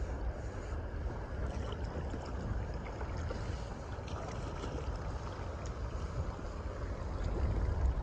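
Steady rush of silty river water and wind as a canoe glides down the South Nahanni River, with a faint continuous hiss of silt brushing against the hull.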